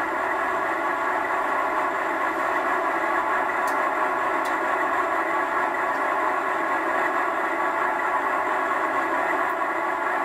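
Onboard sound unit of a G-scale model diesel locomotive playing a steady diesel engine sound through its small speaker. There are a couple of faint ticks about four seconds in.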